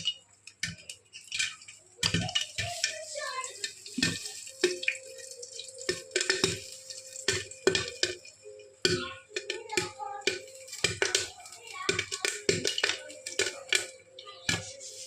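Popcorn kernels popping in a pan: a fast, irregular run of sharp pops, several a second.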